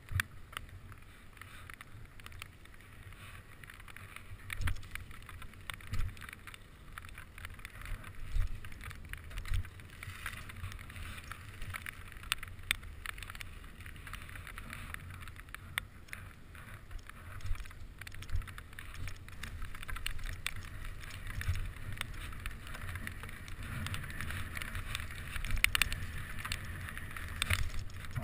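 Bicycle ridden fast over wet tarmac and then grass. Wind rumbles on the camera microphone and the tyres hiss. The chain and frame rattle and knock over bumps, with several sharper thumps.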